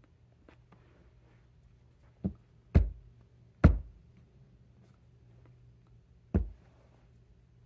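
Four dull thumps from hands knocking and touching while signing ASL close to the microphone, the loudest two near the middle, over a faint steady low hum.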